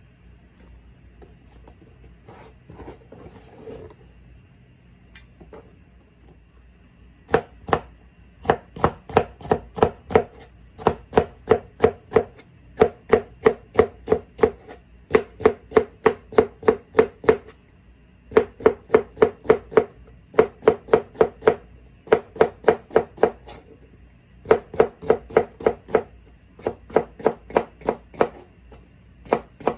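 Kitchen knife slicing pickled cucumbers (oiji) on a cutting board, starting about seven seconds in: crisp, even knocks about three a second, in runs broken by short pauses.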